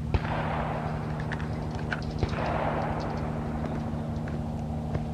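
Two gunshots about two seconds apart, each followed by a rolling echo, over a steady low hum.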